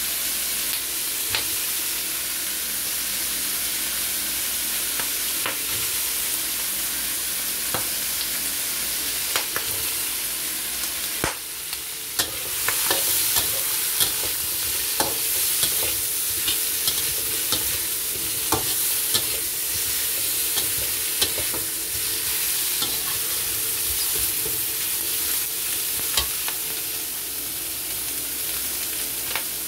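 Vegetables stir-frying in a wok: a steady sizzle, with the spatula scraping and clicking against the pan. The sizzle grows stronger about twelve seconds in, as sliced white mushrooms go in.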